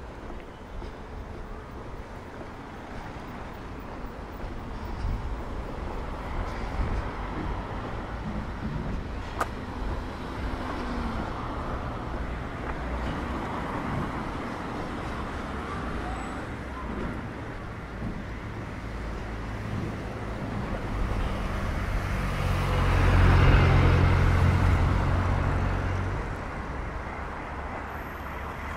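Street traffic rumbling steadily. About three-quarters of the way through, a motor vehicle passes close by, its engine swelling to the loudest point and then fading.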